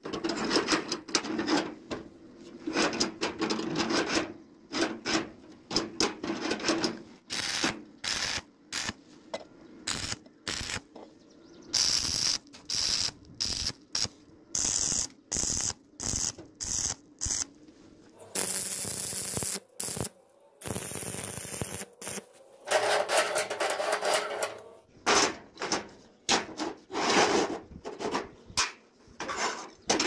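Electric arc welding on steel, crackling and sizzling in a series of short welds that start and stop abruptly, with brief gaps between them.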